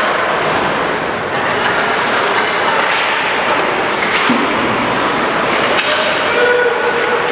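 Ice hockey game din: a steady wash of skates scraping the ice and spectator noise, with a handful of sharp knocks from sticks and puck.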